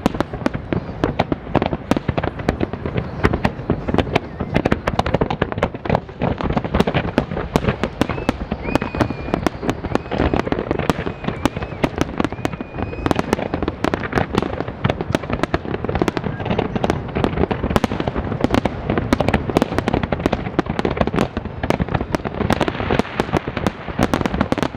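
Dense fireworks barrage: many shells bursting every second in a loud, unbroken run of bangs, with a faint wavering whistle partway through.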